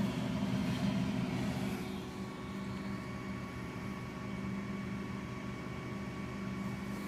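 Steady low machine hum, several fixed tones over a faint noise, like fans running; it eases slightly about two seconds in.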